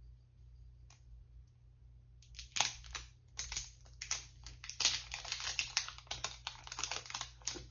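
Quick crackling and clicking of product packaging being handled and opened by hand, starting about two and a half seconds in and going on in a dense run.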